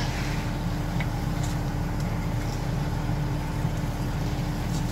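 Concrete mixer truck's diesel engine running steadily, a constant low hum.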